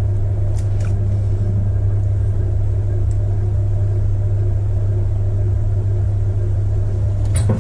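Electric potter's wheel running with a steady low hum.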